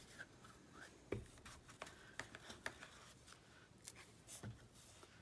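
Faint handling sounds of paper crafting: a few soft taps and light rustles as a paper tag and a glue bottle are moved about on a cutting mat.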